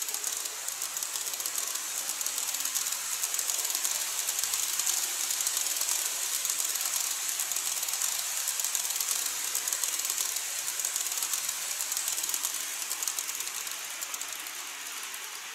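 Model train, an EF81 electric locomotive hauling blue 14-series sleeper coaches, rolling past on its track: a steady high rattling hiss of wheels on rail with fine clicking, loudest midway and fading near the end as the train draws away.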